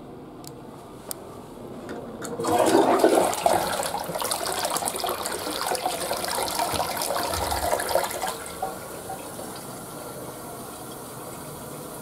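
Western-style flush toilet being flushed: a few faint clicks, then about two seconds in the water rushes in, loudest for the first second, swirls and drains for about six seconds, and falls off to a quieter trickle as the tank refills.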